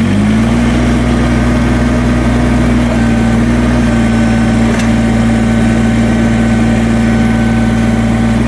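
Kubota BX23S sub-compact tractor's three-cylinder diesel engine running. Its pitch rises as the hand throttle is opened at the start, then it holds steady at the higher speed.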